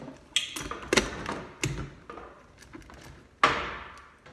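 Several sharp metallic clanks and rattles, the loudest about three and a half seconds in, as the old garbage disposal's parts and wiring are worked loose by hand.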